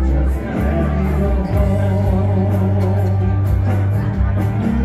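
Pop song performed live by a male vocalist over a band or backing track, with a steady drum beat and a strong bass line.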